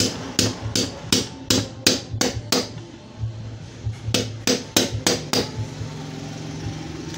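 A hammer striking a steel hollow punch to cut a hole through gasket material: a quick run of about eight sharp blows, a pause, then about five more.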